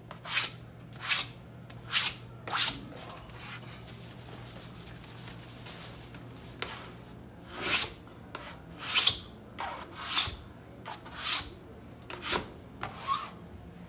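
Cloth rag wiping over shiny commercial vinyl wallcovering in short hissing strokes, smoothing the freshly hung paper at the seam. Four quick strokes come in the first three seconds, then after a pause a run of strokes at about one a second.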